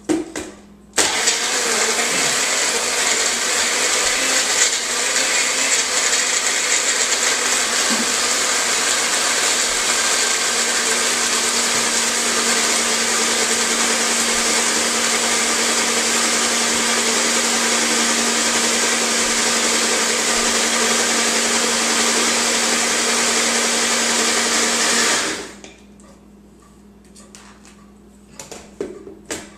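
Single-serve blender motor running steadily, blending a shake of milk, banana and ice cubes. It starts about a second in and stops a few seconds before the end, then starts up again right at the end.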